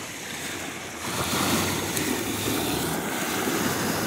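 Small sea waves washing over the shallows, with wind buffeting the microphone as a low rumble; the noise gets louder about a second in.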